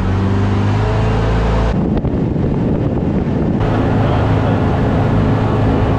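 Motorboat engine running steadily at speed, heard from inside the enclosed cabin, with rushing water and wind noise.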